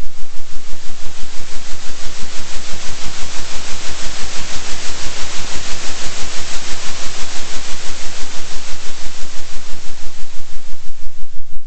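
Synthesized noise oscillating in loudness about three times a second: an even rushing hiss over a steady low hum. The upper hiss swells in over the first seconds and drops away near the end.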